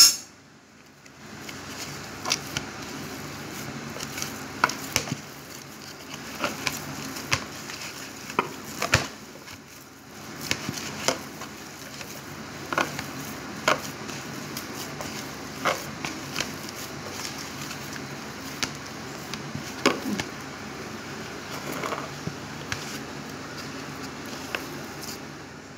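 Hands kneading stiff gram-flour dough, just mixed with hot oil, in a bowl: soft pressing and squishing with irregular sharp clicks and taps, roughly one or two a second.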